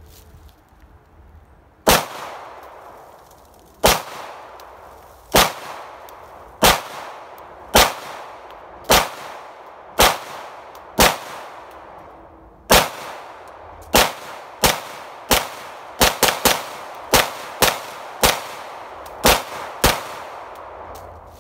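Canik TP9SFX 9mm pistol firing a full 20-round magazine, about twenty sharp shots each with a fading echo. The shots come a second or more apart at first and quicken into faster strings in the last few seconds.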